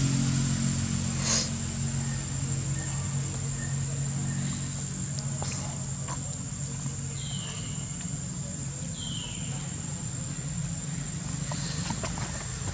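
Outdoor ambience: a steady high insect drone over a steady low hum, with two short, high, falling calls about seven and nine seconds in.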